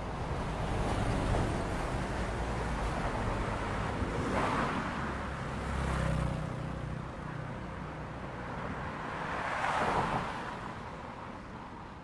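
Road traffic noise: a steady low rumble, with two vehicles swelling past, about four and ten seconds in.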